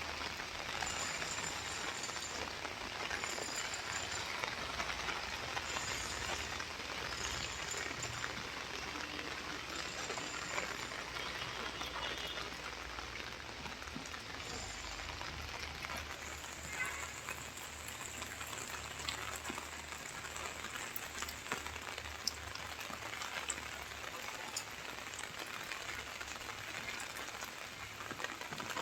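Heavy rain falling steadily, a constant hiss with many small drop ticks, over a low hum.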